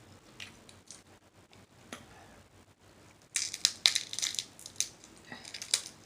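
Snow crab leg shells being cracked and snapped apart by hand: a few scattered cracks, then a quick flurry of sharp crunching cracks about three seconds in and a few more near the end.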